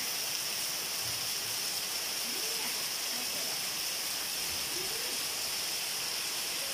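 Heavy rain pouring steadily onto trees and foliage: an even, unbroken hiss.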